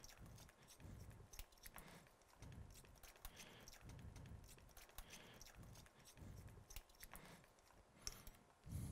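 Faint creaking and grinding from a hand driver screwing a 4.75 mm biocomposite SwiveLock anchor into tibial bone, in slow turns about once a second with light clicks.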